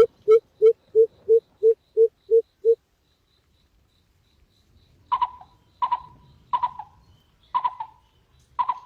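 Bird calls: a fast, even run of low hooting notes, about three a second, that stops just under three seconds in. After a short pause come five sharper, higher calls, each under a second apart.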